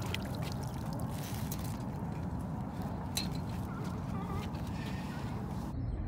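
Water pouring and dripping off a wire crab pot as it is hauled out of the water, then clattering as the pot is set down on the dock, over a steady low rumble of wind on the microphone. A few short bird calls come through about the middle.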